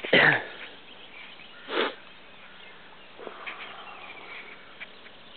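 Animal calls: a loud call at the start that drops steeply in pitch, a second call nearly two seconds in, and a fainter one about three seconds in, over faint background birdsong.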